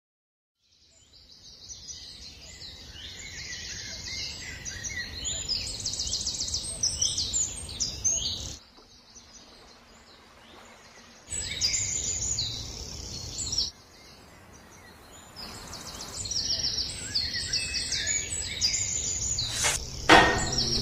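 Many small birds chirping and trilling over a low, steady outdoor rumble. The birdsong fades in about a second in and drops out twice for a few seconds, with a sharp click near the end.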